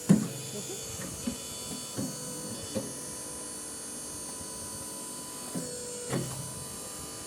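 Adobe brick-making machine running with a steady electric hum. About six sharp knocks and clanks cut through it, the loudest right at the start and two close together near the end.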